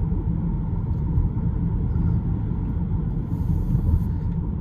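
Low road and tyre rumble inside a moving Tesla Model 3 Performance, an electric car with no engine note, with a brief hiss about three and a half seconds in.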